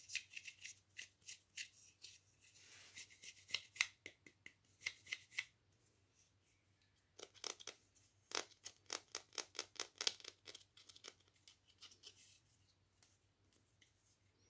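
A small pink plastic toy hairbrush handled in the fingers: faint, quick plastic clicks and scratches in two spells, with a pause of about a second and a half between them.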